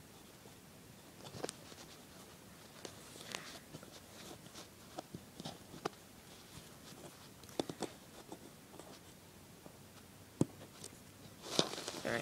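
Soft rustling and irregular light clicks as fabric potholder loops are worked over and under the stretched loops on a plastic peg loom, with a louder flurry of handling near the end.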